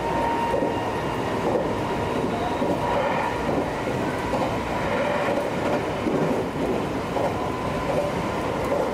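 Meitetsu 2200 series electric train running on the rails: wheel and track clatter under a steady high whine.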